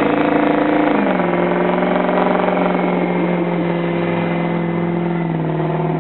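Pickup truck engine revving hard under load, its rear wheels spinning in snow as it pulls a stuck semi-trailer on a tow strap. The engine note drops slightly about a second in, then holds steady.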